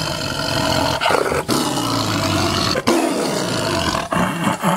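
A tiger roaring and growling over its meat at feeding time, in long loud bouts broken by short pauses about a second and a half and three seconds in. This is the cat guarding its food, a sharp change from its calm greeting moments before.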